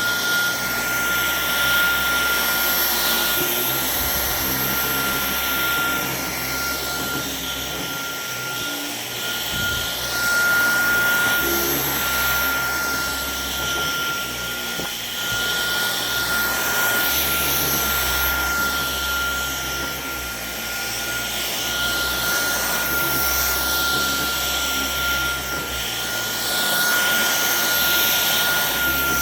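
Dyson V11 Torque Drive cordless vacuum cleaner running on carpet. Its motor holds a steady high whine, and the rush of suction noise swells and eases every few seconds as the head works the pile.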